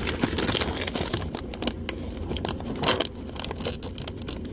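Irregular crinkling and crackling of plastic snack bags being handled in a vending machine's spiral rows.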